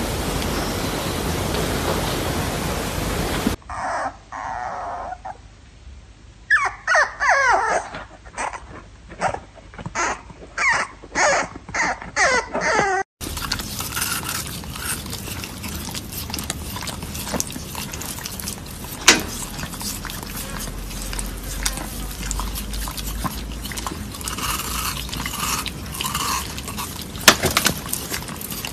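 Jack Russell terrier whining in a run of about a dozen short, falling cries over some six seconds, between stretches of steady hiss.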